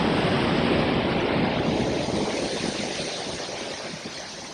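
Waterfall in heavy flow, the falling water and spray making a steady rushing noise that fades gradually over the last two seconds.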